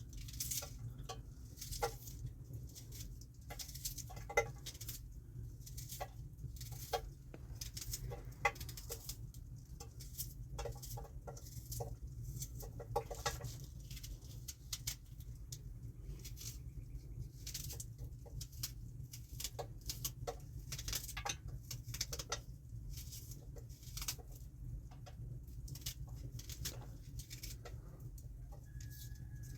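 Chickens clucking in short, irregular calls over a steady low hum.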